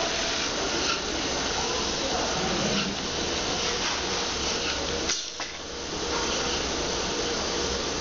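Steady whirring hiss of a tyre-retreading machine running as the tyre turns on it, with a short drop in the sound about five seconds in.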